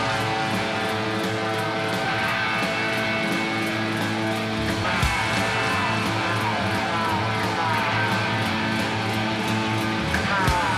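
Live rock band music led by an electric guitar, which plays held notes and fast falling runs over a steady bass line.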